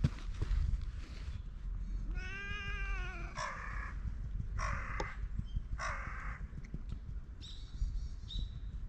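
A tabby-and-white stray cat gives one long, drawn-out meow that rises and falls, about two seconds in, while being petted. Three short harsh calls follow about a second apart, and faint high chirps come near the end.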